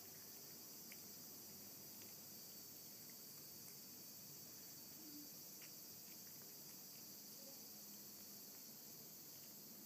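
Near silence: a steady high hiss, with a few faint soft clicks from a cat licking and chewing wet canned cat food.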